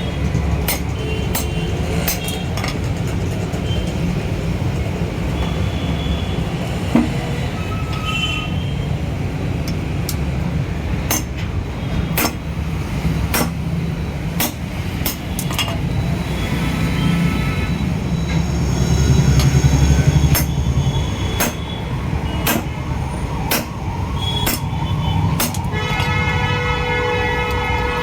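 Sharp metal knocks or taps every second or so over a steady low rumble of traffic. A wailing siren starts near the end.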